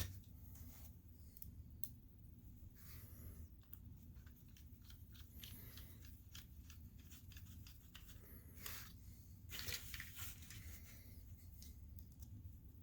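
Faint scattered clicks and brief light scrapes of small parts being handled, with a slightly louder stretch of scraping near the end.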